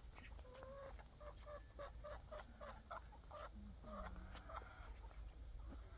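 Chicken clucking faintly: a quick run of short clucks, a few per second, that stops about four and a half seconds in.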